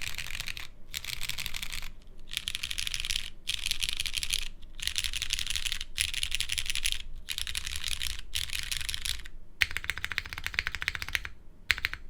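Typing on a Kibou Fukuro mechanical keyboard with Cherry MX Brown switches on an aluminium plate and GMK keycaps. The keys are struck in quick runs of a second or two with short pauses between them, and near the end come a few separate, louder strokes.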